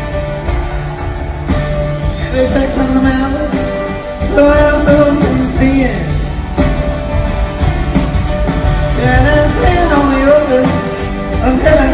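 Live folk-rock band playing: strummed acoustic guitar with upright bass and drums, and a man's voice singing in places.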